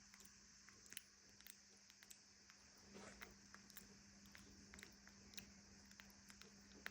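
Near silence: faint room tone with a steady low hum, scattered faint irregular clicks and a brief soft rustle about three seconds in.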